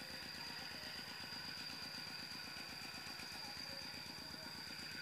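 Two-wheel walking tractor engine running steadily at a distance with an even, rapid chug. A steady high, thin tone sits above it.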